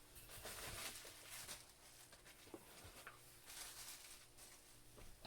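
Near silence: faint, scattered rustling and light taps of action figures and packaging being handled, over a low steady hum.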